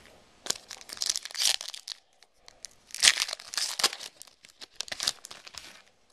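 Crinkly wrapper of a trading card pack being torn open and crumpled, in three bursts of crackling.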